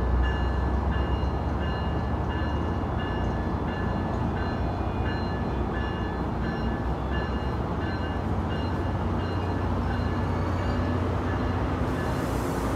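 Diesel train running at a station with a steady low rumble, while a bell rings about twice a second. Near the end a low engine note rises in pitch.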